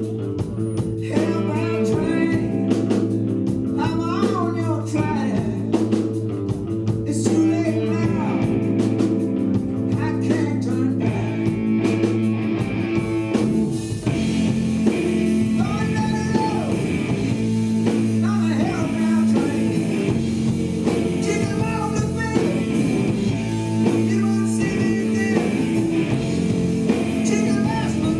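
Blues-rock band playing live: electric guitar lines with bending notes over bass and drums, with a man singing.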